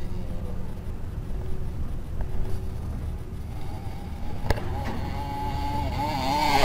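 Two-stroke 125 cc enduro motorcycle engine running off-road, its revs wavering up and down and building again near the end, with a couple of sharp knocks about four and a half seconds in.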